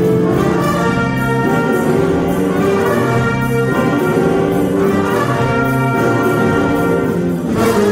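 Jazz big band playing: saxophones, trumpets and trombones together in loud, sustained ensemble chords.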